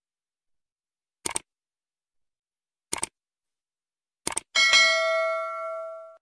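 Three sharp double clicks, about a second and a half apart, then a bright bell-like ding that rings out and fades over about a second and a half.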